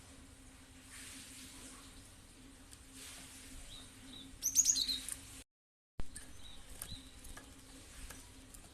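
Cinereous tit (gelatik batu) calling: faint chirps, then a quick burst of sharp, high, rising notes about four and a half seconds in. Shortly after, the sound cuts out completely for about half a second.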